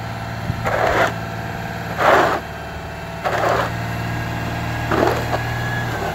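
School bus engine running steadily with a low hum, with four short crunching noises about a second and a half apart, the loudest about two seconds in.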